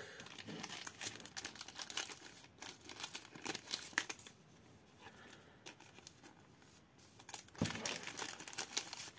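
Packaging crinkling and crackling as it is handled while card tins and packs are opened. A quieter stretch comes midway, then another flurry near the end.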